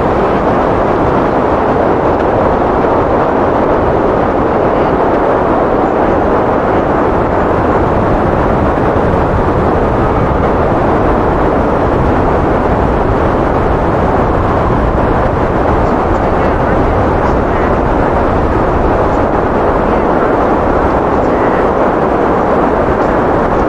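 Heavy rain pouring steadily onto flooded pavement: a dense, unbroken, muffled rush of noise.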